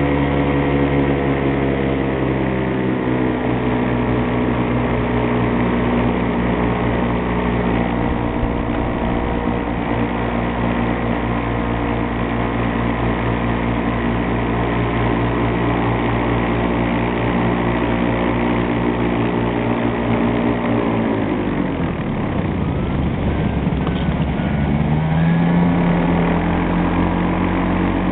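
Miniplane Top 80 paramotor's small two-stroke engine and propeller running at steady throttle. About twenty seconds in the revs fall steeply as the throttle is eased off, then pick up again near the end.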